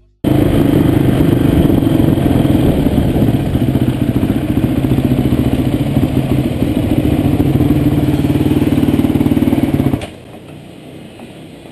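Dirt bike engine running steadily close by, then shut off about ten seconds in, leaving a low background hum.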